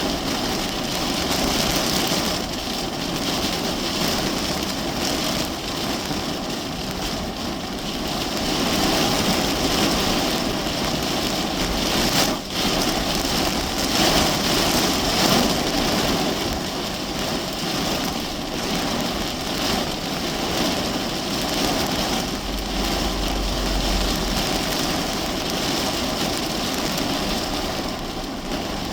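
Heavy rain beating steadily on a car's roof and windows, heard from inside the parked car during a storm, with a brief low rumble about two-thirds of the way through.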